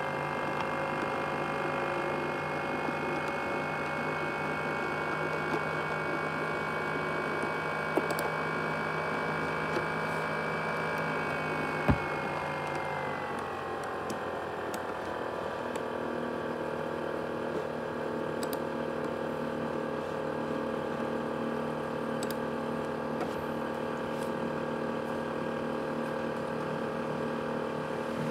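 Asus X543UA laptop's CPU cooling fan running at high speed, a steady whine of several tones. About halfway through there is a click, and the whine slides down in pitch over a few seconds as the fan drops to a lower speed.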